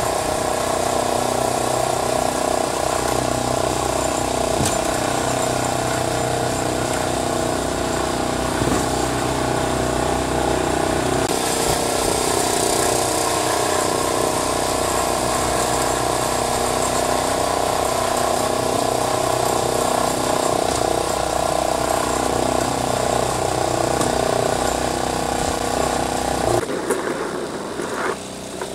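Small engine of a Wolf-Garten ride-on garden tractor, used as a snow plough, running steadily. Near the end the sound drops sharply and a short rising engine note follows.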